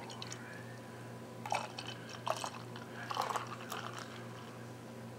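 A freshly poured glass of beer held close to the microphone, giving a few short crackling noises about a second and a half, two seconds and three seconds in, over a faint steady hum.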